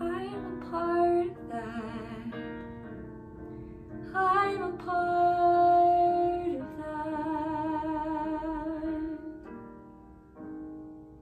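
A woman singing long held notes with vibrato over a piano accompaniment, growing quieter towards the end.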